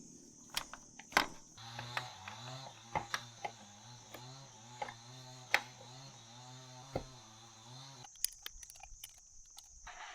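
Sharp metallic clicks and clinks of hand tools and parts while a motorcycle starter motor is tightened and reassembled. A low, wavering hum runs under them from about a second and a half in and stops about two seconds before the end.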